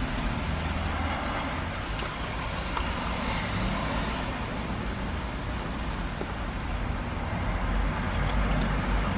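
Steady rumble of road traffic heard from inside a van's cabin, growing a little louder near the end.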